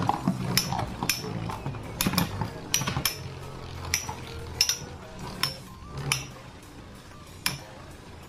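Two metal Beyblade spinning tops, Rock Leone and Galaxy Pegasus, spinning in a plastic stadium and striking each other with sharp, irregular metallic clinks about once or twice a second, growing sparser near the end.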